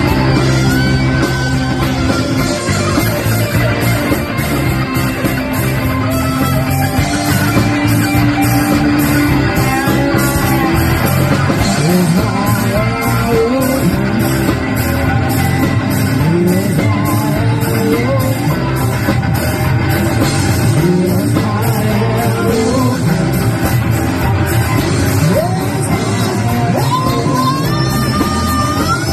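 Live rock band playing with drums, bass, guitars and keyboards, a steady beat under a lead line that slides up and down in pitch.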